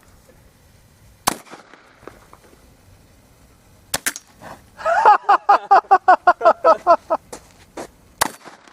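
Shotgun firing gasoline-filled capsule rounds: sharp single reports about a second in, at about four seconds and near the end. Between the shots a bird gives a rapid run of honking calls, about six a second, which is the loudest sound here.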